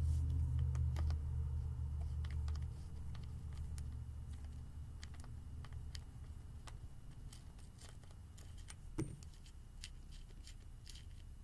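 Faint, scattered metal clicks of a small wheel wrench working loose the wheel nut on a Traxxas Rustler RC truck, over a low hum that fades out over the first few seconds. A louder knock comes about nine seconds in.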